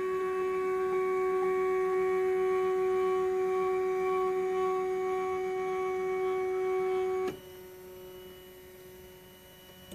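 MakerBot Replicator 2 desktop 3D printer's stepper motors giving a steady, multi-pitched whine during its last moves at the end of a print. The whine stops abruptly about seven seconds in, leaving a fainter steady hum.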